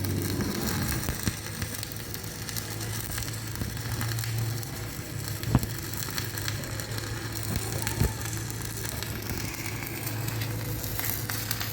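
Stick welding arc burning a 3.2 mm E6013 electrode at about 70 amps: a steady crackle with a low hum under it and two sharp pops, around the middle and about two-thirds of the way through.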